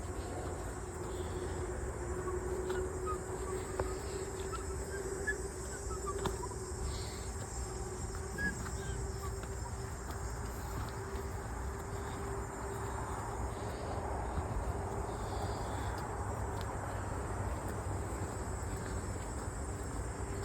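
Steady chorus of crickets and other insects in late-summer vegetation, with a steady low hum beneath it, a few faint short chirps in the first half and occasional small clicks.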